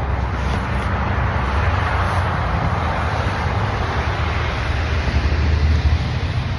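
Steady rushing noise with a low rumble underneath, with no breaks or distinct events.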